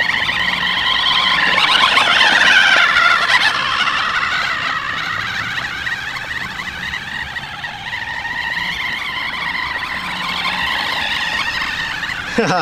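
Electric drive motor of a radio-controlled toy Jeep Wrangler whining as it drives across dirt, loudest and wavering about two seconds in, then steadier.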